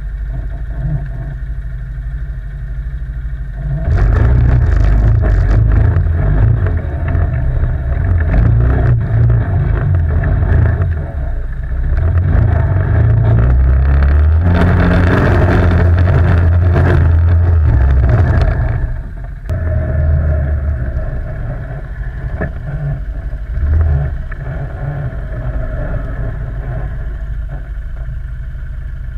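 ATV quad bike engine running, opened up and much louder after a few seconds for about a quarter of a minute, then easing back to a lower, steadier run.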